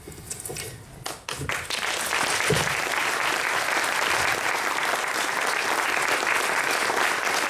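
Audience applauding: a few scattered claps about a second in quickly build into steady, full applause.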